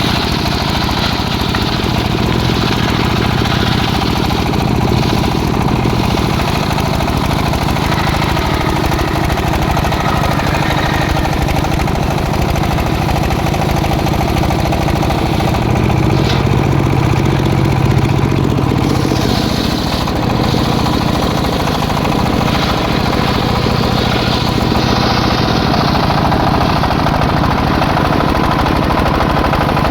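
Engine-driven circular sawmill running steadily while teak is cut, its low engine note growing heavier for a few seconds a little past halfway.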